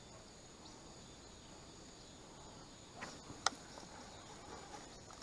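Faint, steady high-pitched chirring of crickets. About three seconds in come two short sharp clicks, the second louder.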